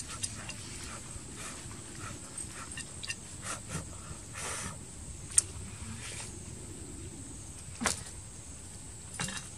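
A person blowing on hot grilled fish and picking at its flesh with a stick, with soft puffs of breath and scattered small clicks and scrapes; two sharp clicks stand out, the loudest about five seconds in.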